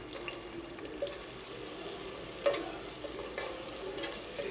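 Chopped onions sizzling in hot oil as they go into the pot and are stirred with a wooden spatula. The spatula knocks against the pan a few times, most clearly about one second and two and a half seconds in.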